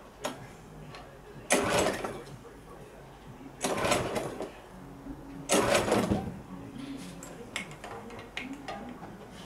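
Petrol push lawn mower being pull-started: three pulls on the recoil starter cord about two seconds apart, each a brief whirr of the engine turning over, without the engine catching.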